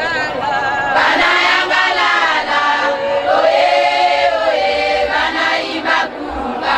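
A choir singing a hymn, many voices together in a slow, drawn-out melody.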